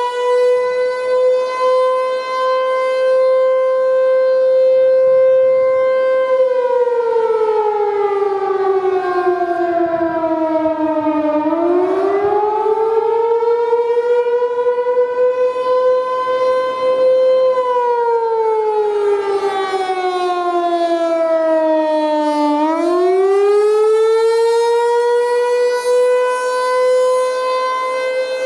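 American Signal T-128 outdoor warning siren sounding a wail, the attack signal of its alert/attack/alert test. A single loud tone holds steady, then twice slides down and climbs back up over several seconds.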